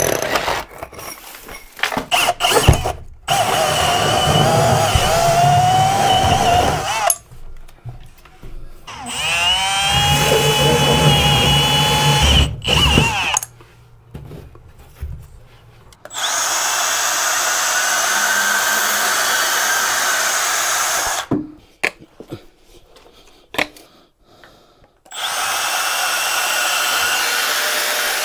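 Cordless power drill running in several bursts of a few seconds each, with short pauses between; twice the motor whine rises in pitch as it spins up, then holds steady while it bores.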